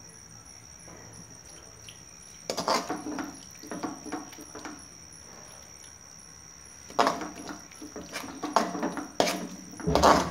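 Metal spatula scraping and stirring thick masala paste in a coated frying pan, with clinks of a steel grinder jar against the spatula and the pan rim as the ground masala is scraped out of the jar into the pan. After a quiet first couple of seconds it comes in two bouts of scrapes and clinks, the loudest near the end.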